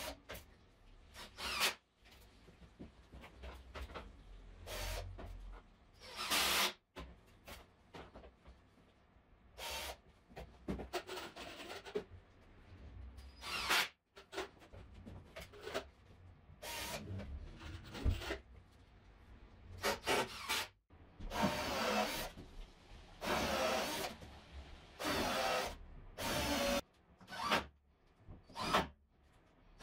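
A cordless drill driving screws into a wooden workbench frame and plywood top, heard as many short bursts with gaps between them, along with the rubbing of wood being handled.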